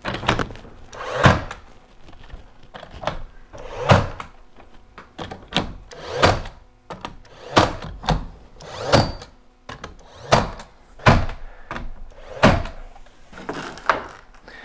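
A brad nailer firing a run of sharp shots, roughly one a second, driving brad nails through door casing into the frame.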